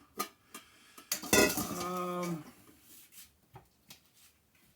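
Dishes and cutlery clinking and clattering as they are handled, with a louder clatter about a second in and lighter clinks after.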